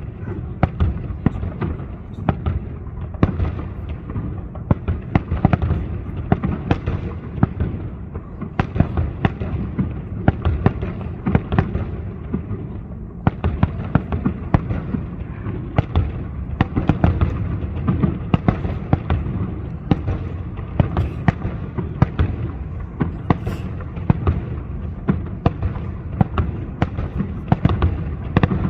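Fireworks display going off without a break: a dense, continuous run of bangs and crackling reports over a low rumble.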